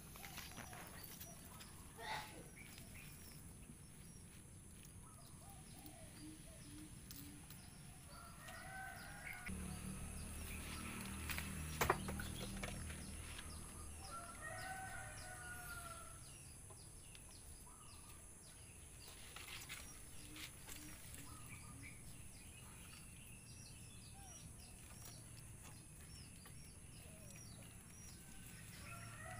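Roosters crowing faintly several times, with some clucking. A low rumble swells in the middle and there is one sharp click about twelve seconds in.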